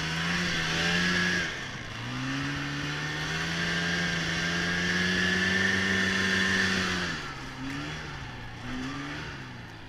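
Snowmobile engine running under throttle while plowing through deep powder snow. The revs dip about a second and a half in, climb and hold steady, then fall off about seven seconds in as the machine slows.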